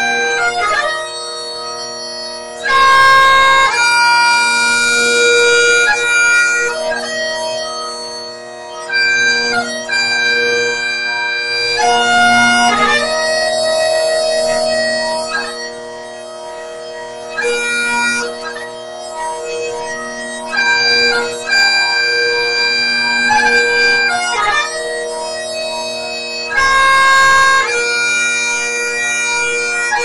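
Great Highland bagpipes playing a slow melody on the chanter over the steady, unbroken hum of the drones.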